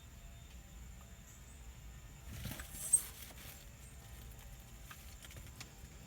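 A dog making a short snuffling sound about two and a half seconds in, ending in one sharp click, over a faint low rumble.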